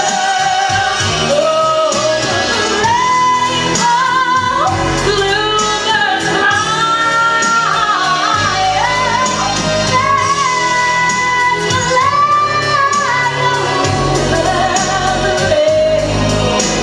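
A woman singing a melody with long held notes over a band accompaniment with a steady beat.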